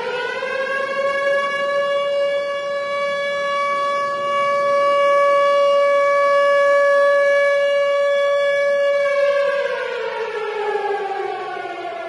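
Tornado warning siren wailing. Its pitch rises over the first second, holds steady for about eight seconds, then glides down near the end.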